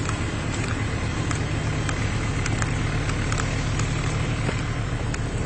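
Vehicle engine idling with a steady low hum, with a few faint light ticks over it.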